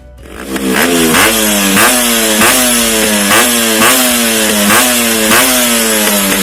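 Yamaha RX two-stroke single-cylinder motorcycle engine fitted with a custom-made GI-pipe exhaust flute, giving a medium sound. It starts a moment in and is revved in quick throttle blips, about ten of them, each a sharp rise in pitch that falls away again.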